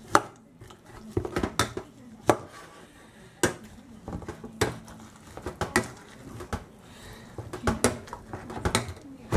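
Metal potato masher pressing boiled potatoes in a stainless steel pot, clinking against the pot's bottom and sides with a sharp knock roughly once a second in an irregular rhythm.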